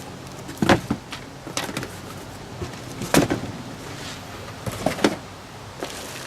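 Car parts and packaging being handled and packed back into cardboard boxes: a few sharp knocks and thuds with scraping, the loudest about one second and three seconds in.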